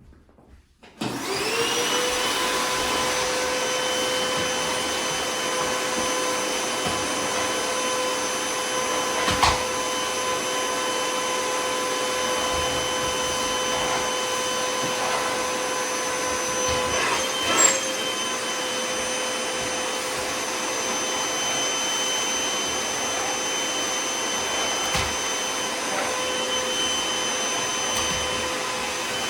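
Sanitaire Mighty Mite canister vacuum switched on about a second in, its motor spinning up into a steady high whine and running on as it cleans bare floor. Two brief knocks stand out partway through.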